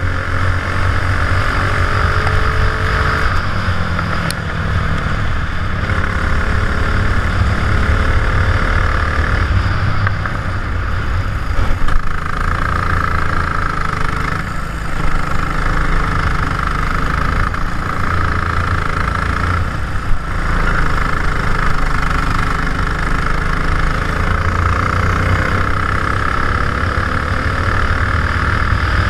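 Racing kart engine running on track, its pitch rising and falling as it accelerates and lifts, heard from a helmet-mounted camera in its housing. Two sharp knocks partway through.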